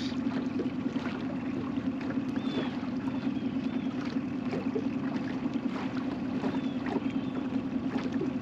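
Boat motor running steadily at trolling speed, a constant low hum.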